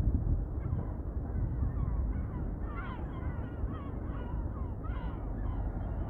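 Several birds calling with short, repeated, falling cries, over a low rumble of wind on the microphone.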